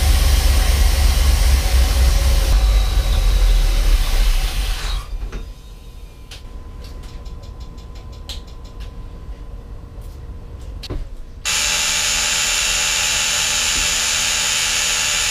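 A boat engine running with a steady deep rumble. About five seconds in it drops off suddenly to a much quieter stretch with faint ticks. Near the end, a loud steady rushing noise starts abruptly.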